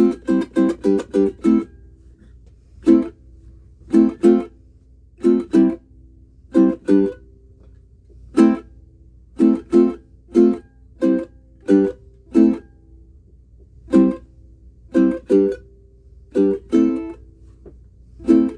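Pono PCMP pineapple ukulele in curly spalted mango with a wound low-G string, strummed: a quick run of chord strums in the first second and a half, then separate chord strokes, singly and in pairs, with short gaps between.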